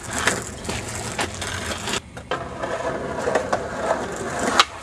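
Skateboard wheels rolling over rough concrete with a few sharp wooden clacks of the board, and one loud clack near the end.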